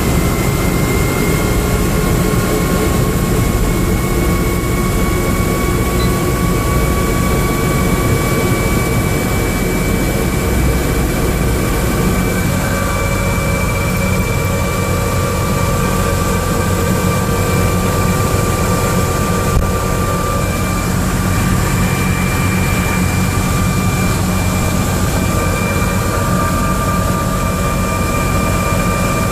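Medical helicopter's turbine engine and rotor running, heard from inside the cabin: a loud, steady rush with a high whine that edges up slightly in pitch about halfway through.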